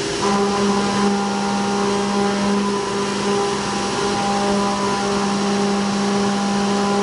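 CNC milling machine's end mill cutting a pocket under flood coolant: a steady pitched cutting tone over the hiss of the coolant spray. The tone falters briefly a few times as the tool changes direction sharply at the corners of its racetrack toolpath.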